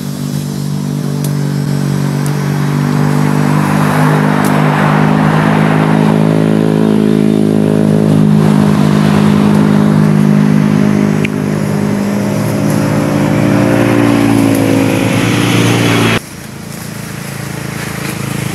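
An engine running at a steady speed, its pitch drifting a little. About sixteen seconds in it drops away abruptly, leaving a fainter hum.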